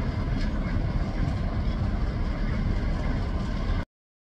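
Diesel locomotive leading a passenger train, a steady low rumble that cuts off abruptly near the end.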